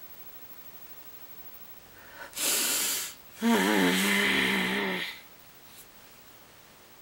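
A sharp breathy gasp, then a strained, breathy vocal groan held for about a second and a half: the reader's dramatic reaction to the page being turned.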